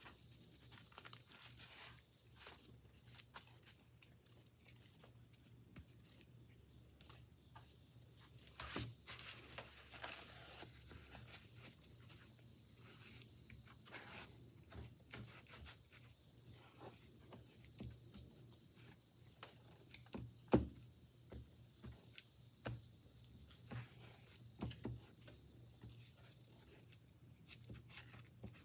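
Two-part Bondo body filler being stirred with a scrap stick of wood on a piece of cardboard: faint, irregular scraping and tapping as the hardener is worked in, with one sharper knock about twenty seconds in.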